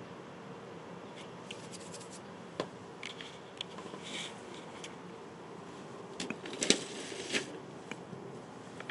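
Light handling sounds: scattered small clicks and scratchy scrapes, with a quick cluster about two-thirds of the way through the loudest, over a steady low hum.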